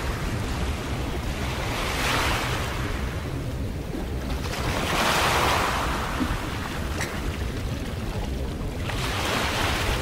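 Small waves washing against ice-crusted rocks along a breakwater. The wash swells and recedes about three times.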